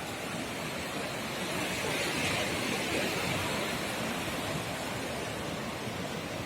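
Small ocean waves washing onto a sandy beach: a steady surf hiss that swells as a wave breaks about two seconds in, then eases back.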